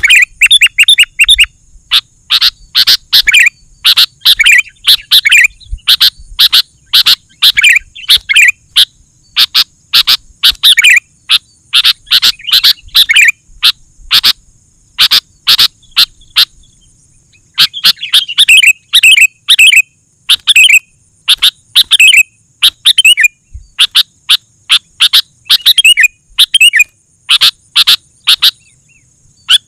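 Sooty-headed bulbul singing loudly and busily: short bubbling, fluting phrases repeated in quick runs, with brief pauses between runs.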